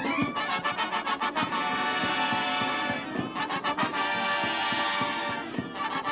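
Military brass band playing: trumpets, trombones and tuba sounding together over regular drum beats.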